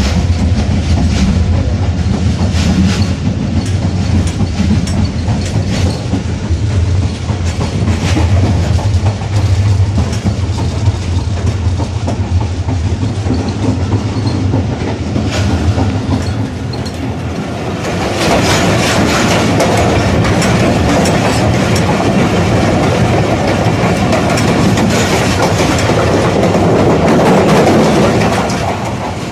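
A moving passenger train heard from inside the coach: the steady rumble of the wheels on the rails, with a clickety-clack of rail joints. About eighteen seconds in the noise grows louder and harsher.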